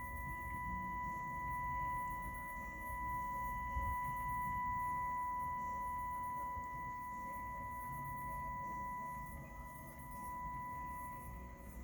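A steady pure test tone, with a fainter overtone an octave above, played through a Marantz 2238B stereo receiver on the test bench. A low rumble sits underneath.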